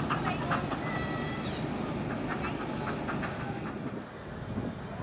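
Miniature ride-on steam locomotive running past with its passenger cars, a steady steam hiss and a run of irregular clicks from the train. About four seconds in the hiss cuts off and the sound drops to a quieter open-air background with voices.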